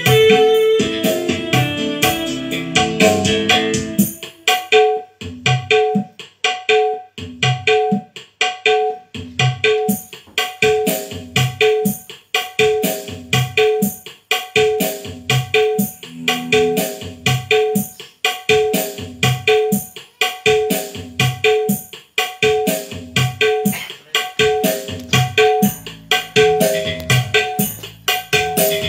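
Instrumental music played from a phone through the mixer: a keyboard melody for the first few seconds, then a quick, steady drum rhythm with repeating pitched notes, its mids and highs turned up slightly on the mixer's EQ.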